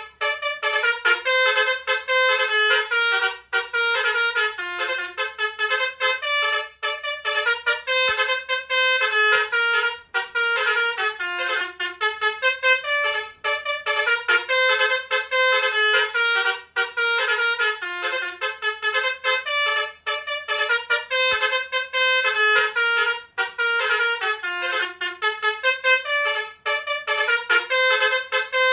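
Basuri 'telolet' multi-tone musical bus horn playing a fast tune of quickly changing notes. It repeats in phrases with short breaks every few seconds.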